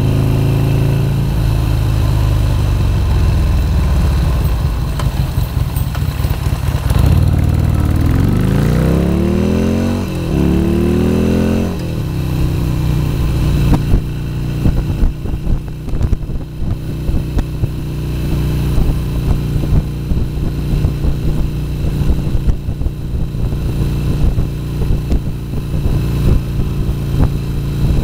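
Harley-Davidson XR1200's air-cooled 1200 cc V-twin running under way, with wind buffeting the microphone. About eight seconds in the engine revs up through a gear, drops at a shift near ten seconds, and climbs again until about twelve seconds. It then settles to a steady cruise with gusty wind noise.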